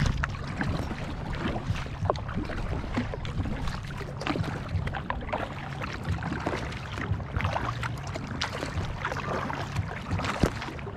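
Double-bladed kayak paddle strokes dipping and splashing in the water, about one a second, over a steady low rumble.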